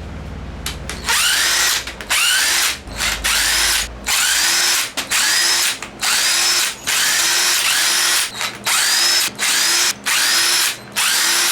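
A cordless power tool runs in about a dozen short bursts, roughly one a second, each starting with a rising motor whine. It is spinning out the Cummins 4BT diesel's head bolts one after another.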